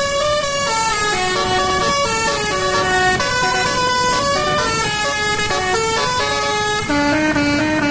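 Basuri musical bus horn (telolet) playing a melody: a run of loud horn notes that step up and down every fraction of a second without a break, with a lower note held a little longer near the end.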